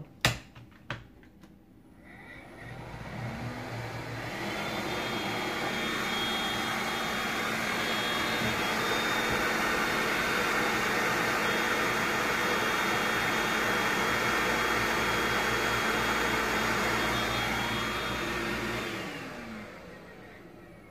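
Philips SpeedPro cordless stick vacuum, tried out with its repaired floor head fitted: a sharp click, then the motor spins up with a rising whine over a couple of seconds and runs steadily. Near the end it winds down and stops.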